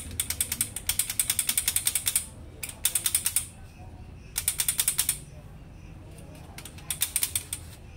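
Rapid ratcheting clicks, about ten a second, coming in four bursts from the opened HP LaserJet M26a laser printer's gear mechanism.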